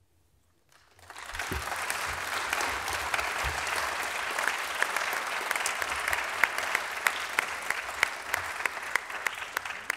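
Audience applauding. It breaks out about a second in and then holds steady, with single sharp claps standing out from the rest.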